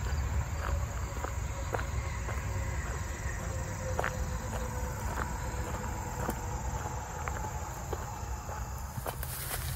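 Footsteps on a gravel track at a walking pace, over a steady low rumble, with a faint steady drone of insects. In the last second the steps turn louder and busier.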